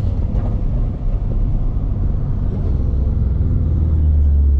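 Car engine running at low revs, a steady deep drone.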